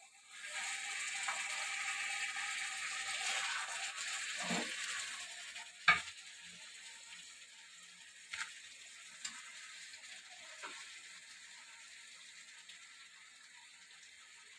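Hot jackfruit curry sizzling in a metal kadhai while a spoon works through it, for about five seconds. Then one sharp clink about six seconds in, followed by a few faint clicks.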